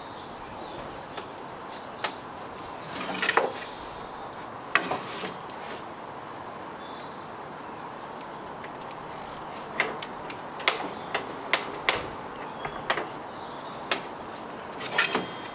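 Scattered clicks, knocks and short sliding scrapes from adjusting the metal rip fence of a benchtop table saw, about a dozen in all, with the longest scrape about three seconds in.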